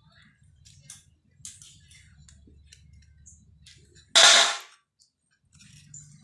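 Faint clicks and rustles of a coaxial cable and tool being handled during stripping, then one loud, sharp snap about four seconds in.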